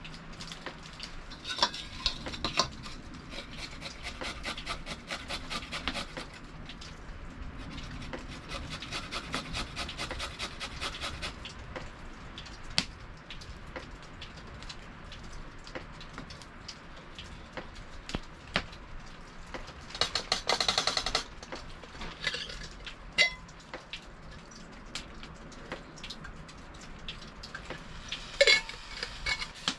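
Campfire crackling, with knocks and clinks of metal cooking gear being handled over it; the loudest clatters come in two short clusters in the second half.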